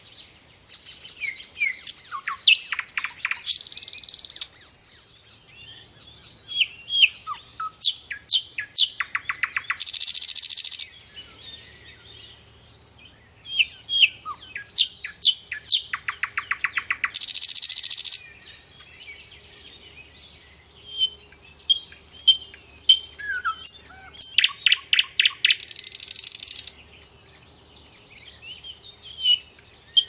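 Nightingale singing: phrases of rapid repeated notes and short whistles, each ending in a fast, dense trill. There are about four phrases, with pauses of two to three seconds between them.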